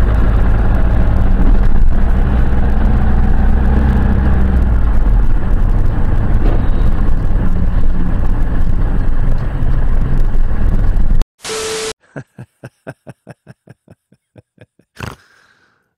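Car dashcam recording from inside a moving car: a loud, steady low rumble of engine and road noise. About eleven seconds in it cuts off into a brief transition sound, followed by a run of quick, evenly spaced clicks.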